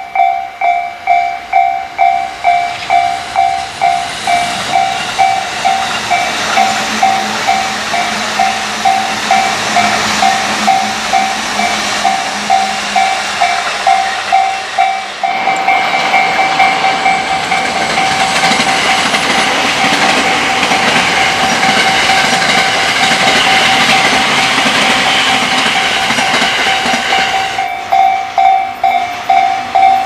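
Japanese level-crossing warning bell ringing, an electronic two-tone clang about two strokes a second. Electric trains pass the crossing with a rising rumble and rattle of wheels on rail that swells over the bell through the middle and fades near the end.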